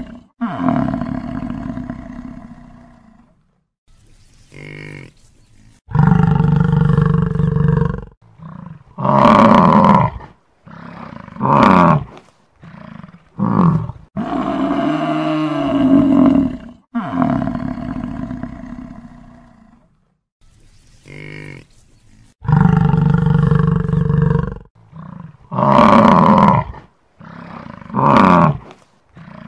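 Buffalo bellowing in a series of deep calls: a long, loud bellow about six seconds in, then several shorter ones. The same run of calls repeats about every sixteen seconds, as a looped recording.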